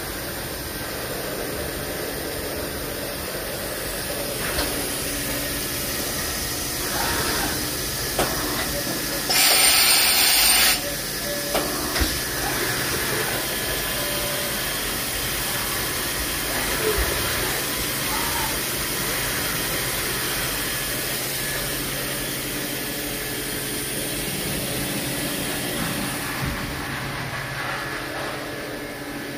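Steady hum of machine-shop equipment with a few light clicks and knocks, broken about nine seconds in by a loud hiss of air lasting just over a second.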